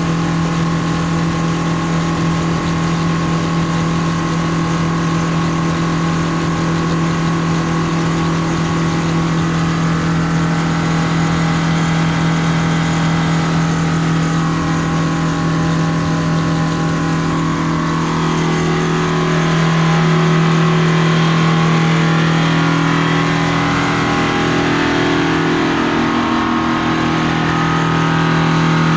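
Combine harvester running steadily in the wheat, its engine holding a constant note; the sound shifts and grows a little louder about two-thirds of the way through.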